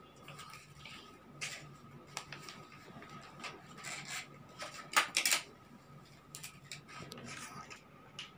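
Plastic packets of crayons and gel pens being handled and opened: wrappers crinkling in short bursts with light clicks, the loudest crinkle about five seconds in.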